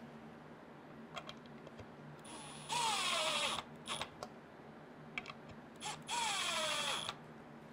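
Cordless drill-driver driving countersunk screws: two runs of about a second each, the motor's pitch falling as it slows in each run, with small clicks of handling between.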